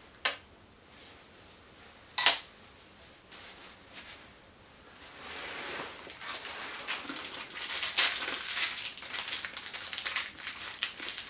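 Two sharp metal clinks in the first few seconds, the second with a short ring. Then, from about five seconds in, the crinkling and rustling of an MRE moist-towelette packet being handled and torn open.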